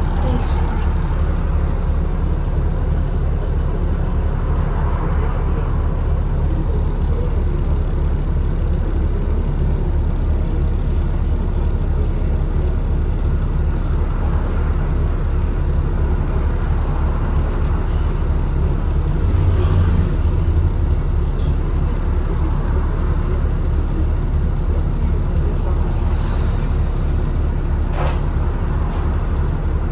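Alexander Dennis Enviro 400 double-decker bus (E40D) running with a steady low engine drone, overlaid by a steady high whine, the vacuum-cleaner-like 'Hoover' sound. The sound swells briefly a little past halfway.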